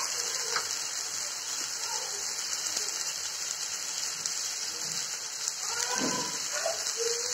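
Hot oil sizzling steadily in a wok as onion, green chilli and ginger-garlic paste fry in it.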